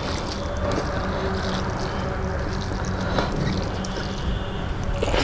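Fingers mixing rice on a steel plate: soft squishing with a few light clicks, the sharpest near the end. A steady low rumble runs underneath and is the loudest part.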